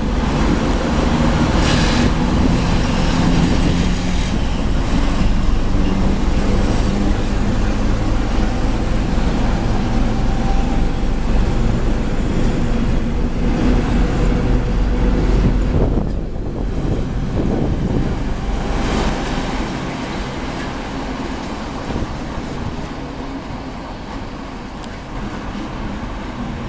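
ChME3 diesel shunting locomotive, with its six-cylinder diesel engine, working hard as it pulls a commuter train away from the platform, together with the rolling clatter of the coaches' wheels on the rails. About two-thirds of the way through the engine sound drops off suddenly, and the wheel noise of the departing coaches fades.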